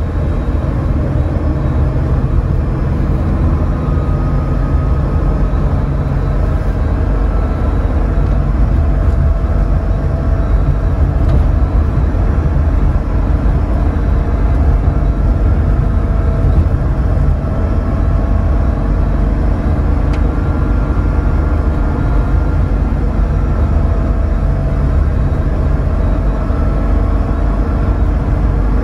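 Steady whir and low rumble inside an air-cooled Porsche 911's cabin, from the retrofit electric air-conditioning blowing through the vents while the car runs, with faint wavering whine tones over the top.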